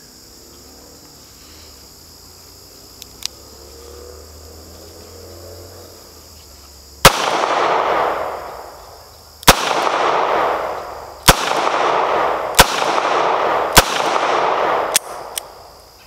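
Five shots from a Smith & Wesson .38 Special Airweight snub-nose revolver, starting about seven seconds in and spaced one to two and a half seconds apart, each followed by a long echo.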